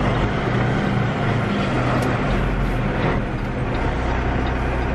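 Semi truck's diesel engine running steadily, heard from inside the cab as the truck makes a right turn, with road and cab noise. The low engine note shifts a little before four seconds in.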